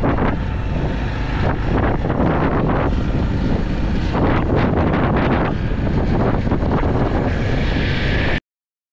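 Wind buffeting the microphone while riding a motorcycle, with engine and road rumble underneath. It cuts off abruptly near the end.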